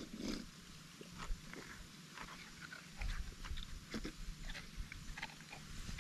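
A person drinking from a young coconut, then chewing and smacking on its soft meat, with scattered small wet clicks as the meat is scooped from the shell.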